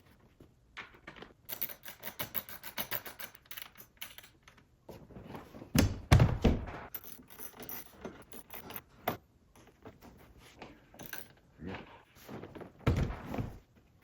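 Plastic seat trim on a power car seat being handled and fitted into place: a run of quick clicks early on, then loose knocks and clatter, the loudest about six seconds in and again near the end.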